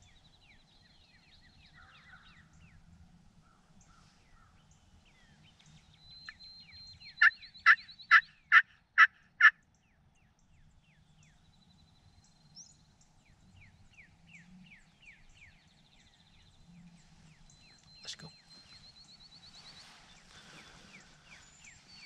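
A turkey call run through a series of six loud, evenly spaced yelps, about two a second, imitating a hen turkey. Songbirds sing faintly in the background.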